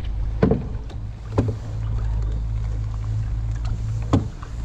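Canoe paddle strokes: three short knocks and splashes about a second in, near two seconds in, and near the end, over a steady low rumble of wind on the microphone.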